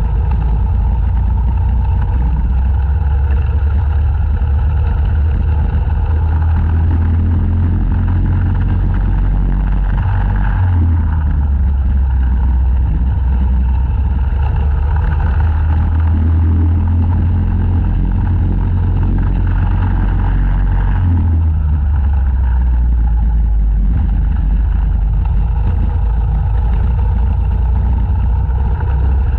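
Racing kart's single-cylinder engine heard from the kart itself at full race pace, its revs rising and falling several times as it accelerates and lifts through the corners.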